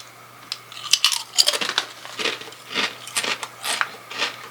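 Quest loaded taco protein chips being chewed close to the microphone: irregular crunches, about two a second.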